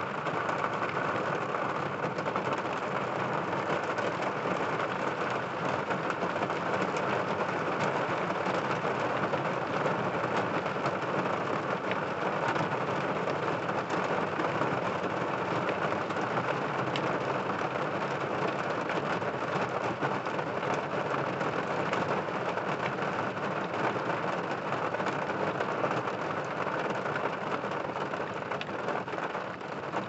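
Steady rain falling during a thunderstorm, an even hiss with a dense patter of individual drops.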